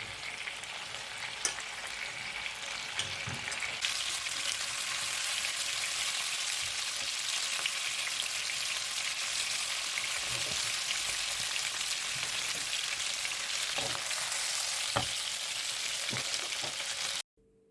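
Chicken wings frying in hot oil in a pan: a steady sizzle that grows louder about four seconds in, with a few faint clicks, cutting off abruptly near the end. It is a second frying to brown wings that were already cooked in sauce.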